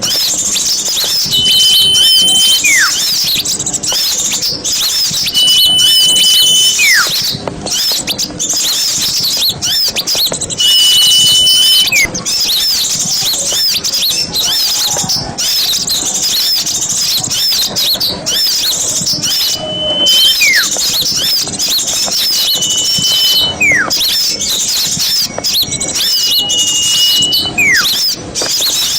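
Bird-lure recording of a dense chorus of many small birds chirping and chattering together. Every four to five seconds a clear whistled note is held briefly and followed by a sharply falling note. The track is used to call small birds in for trapping.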